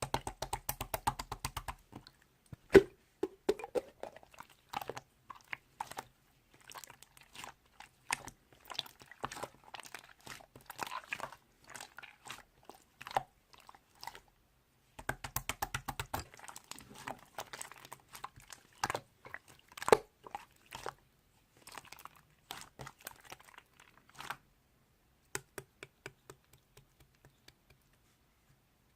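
Slime being squeezed and poked by hand, giving quick runs of sticky clicks and crackles with short pauses; the clicks thin out near the end.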